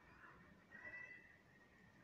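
Near silence: faint room tone, with a brief faint high tone about a second in.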